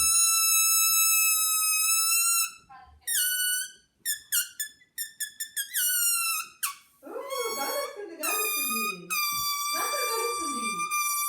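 Air escaping through the stretched neck of an inflated balloon: a loud, high-pitched squeal, held steady at first, then broken into a string of short squeaks that drop in pitch, then long again. A lower, wavering howl-like wail joins in over the second half.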